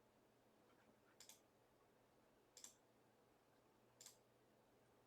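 Near silence broken by faint computer mouse clicks, each a quick double press, three times about a second and a half apart.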